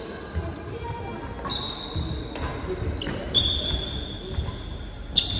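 Badminton rally: rackets strike the shuttlecock several times with sharp smacks, while court shoes squeak briefly on the wooden floor as the players move.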